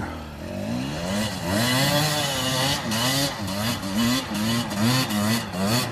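Enduro dirt bike engine revving up and down over and over as the rider works the throttle climbing a steep rocky slope under load, the swells quickening to about two a second in the second half.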